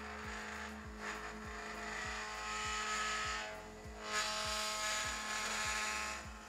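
NEMA 17 stepper motor of a motorized camera slider, run in full-step mode, driving the carriage along the rail by timing belt: a steady whine over a pretty loud buzzing rattle that swells and dips as the carriage travels. The builder puts the noise down to full-step driving shaking the frame and a little play in the lightly loaded carriage.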